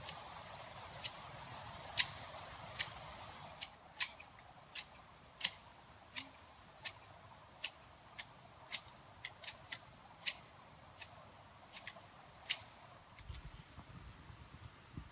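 A series of sharp, irregular clicks, a little more than one a second, over a faint hiss that fades away in the first few seconds.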